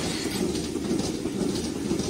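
Rotary milking parlour running: the platform turning with a steady mechanical rumble, with faint irregular clicking over it.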